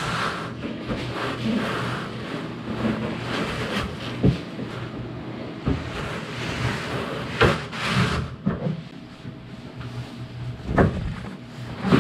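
Hard panels being handled and fitted on a car roof: rubbing and rustling broken by several sharp knocks and clunks, one about four seconds in, two close together around the eight-second mark, and one near the end. A faint steady hum runs underneath.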